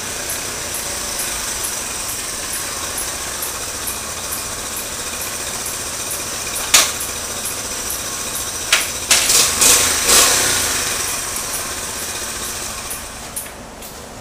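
Honda Trail 110 motorbike's small single-cylinder four-stroke engine running steadily as the bike rides up and stops. A few sharp clacks stand out about two-thirds of the way through, and the engine noise drops away near the end.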